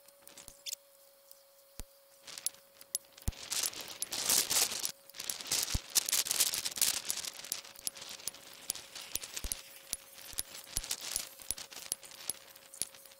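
A moderated PCP air rifle is fired and cycled at a bench: a run of sharp clicks and knocks, with two louder stretches of rustling handling noise and a faint steady tone underneath.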